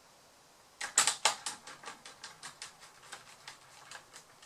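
Small screwdriver turning screws in a Samsung R710 laptop's plastic bottom case. It makes a run of light, sharp clicks, about five a second, starting about a second in and loudest at first.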